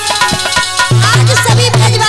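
Indian folk music played live: a hand drum beats a quick, steady rhythm with deep bass strokes under a sustained melody.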